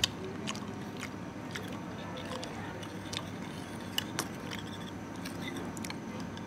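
Metal spoon clinking lightly against a ceramic soup bowl as it stirs and scoops the last of the broth: scattered short clicks at irregular intervals, the sharpest about four seconds in, over steady background noise.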